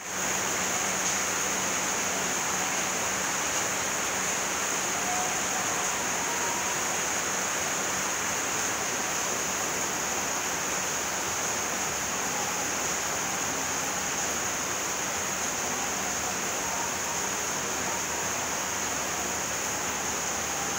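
Steady rain falling: an even, unbroken hiss with a bright high edge.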